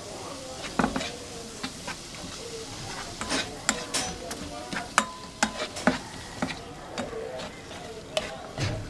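A spoon stirring and scraping sliced tomato, onion and sweet pepper around a dry nonstick pot, with irregular knocks against the pot, while the vegetables sizzle lightly as they sauté without oil.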